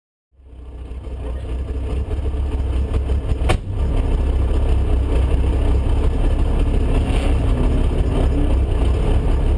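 Opel Ascona i2000 rally car's engine running, heard from inside the cabin, fading in over the first two seconds to a steady low rumble. One sharp click about three and a half seconds in.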